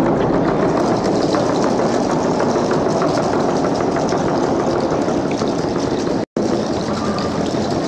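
Loud, distorted group hand drumming and singing on traditional frame drums, overloading the recording; the sound cuts out for a split second about six seconds in.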